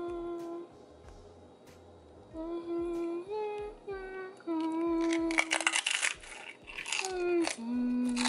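A woman humming a tune in held notes while eating tortilla chips with salsa. Crisp chip crunches come in, heaviest about five seconds in and again near the end.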